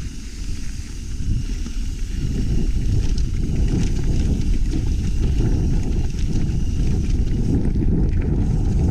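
Wind buffeting an action camera's microphone during a mountain bike ride, a steady low rumble, with scattered light clicks and rattles from the bike over rough ground.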